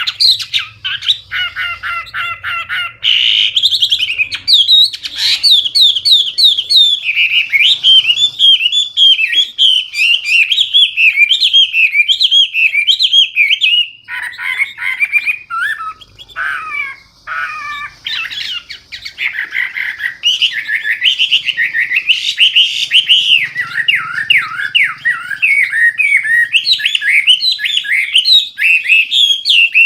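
Chinese hwamei singing loudly and without pause, a rapid run of varied, clear whistled phrases that slide up and down. About halfway through it drops to a short stretch of lower, choppier notes before resuming.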